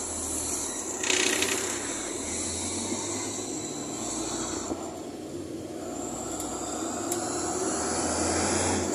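A bus in motion, heard from inside: a steady low engine and road rumble with rattling from the body, and a short louder burst of hiss about a second in.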